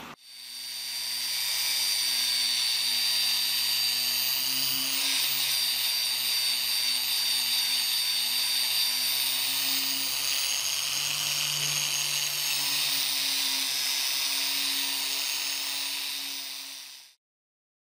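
Electric polishing motor spinning up and running steadily with a high whine, its orange polishing wheel rubbing against the perforated steel cutting plate of an antique meat grinder. The sound cuts off abruptly near the end.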